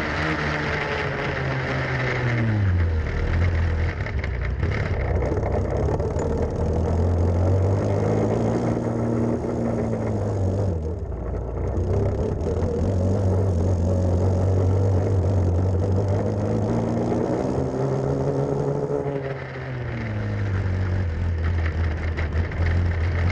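Grass racing kart's small engine heard from on board, running hard at high revs. Its pitch drops steeply about three seconds in and again near twenty seconds as the kart slows for corners, climbing again after each.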